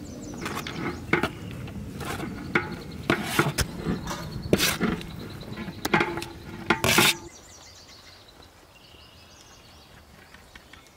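A metal spoon repeatedly clinking and scraping against a large aluminium pot as rice is heaped in, over a low rushing noise. After about seven seconds it goes quiet, leaving faint outdoor ambience with a few high chirps.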